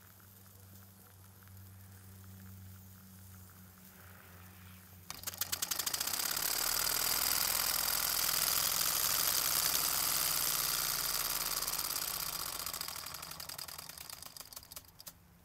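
Early-1950s West German toy vertical steam engine starting up about five seconds in: a sudden, very fast chuffing of exhaust steam with hiss, steady for several seconds, then slowing and dying away near the end as the engine runs down.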